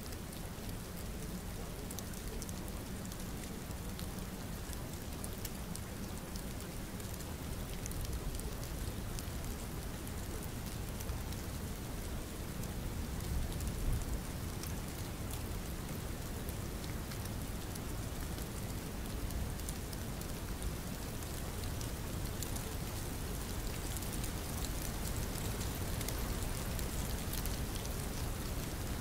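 Steady rain falling: an even hiss with many scattered, sharp drop ticks.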